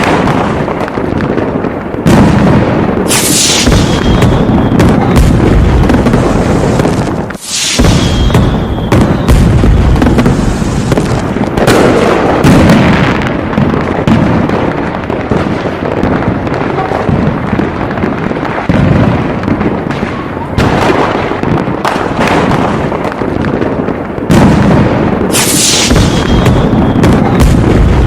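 Aerial fireworks display: a dense, near-continuous barrage of shell bursts, booms and crackling, with a brief high-pitched burst three times.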